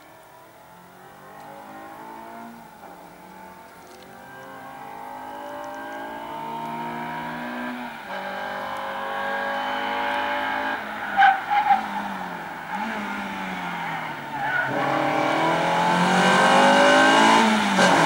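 Renault Clio's engine revving hard and rising in pitch again and again, with drops as the driver lifts off, growing steadily louder as the car approaches. A short tyre squeal comes a little past halfway.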